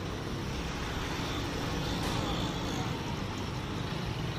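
Steady outdoor street noise: a continuous low rumble like distant traffic, with no distinct events.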